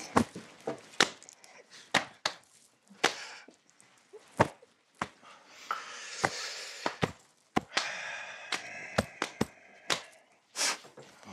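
About fifteen sharp, irregular clicks and taps, with soft, breathy stifled laughter between them.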